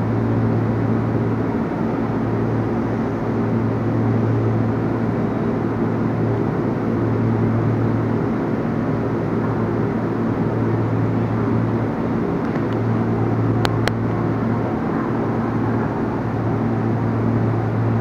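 KRL Commuterline electric multiple-unit train at the platform, its electrical and air-conditioning equipment giving a steady low hum. A couple of sharp clicks sound about fourteen seconds in.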